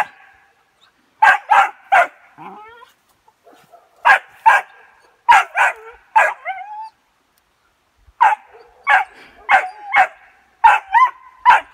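A three-month-old West Siberian Laika puppy barking at a wild boar: high, yappy barks in bursts of two to four, some trailing off into short whines, with pauses of a second or two between bursts.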